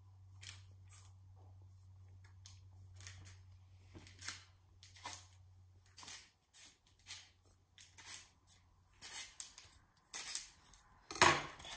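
Kitchen knife scoring slashes into raw baguette dough on parchment paper: a series of short, light slicing and scraping strokes at irregular intervals, with a louder scrape near the end.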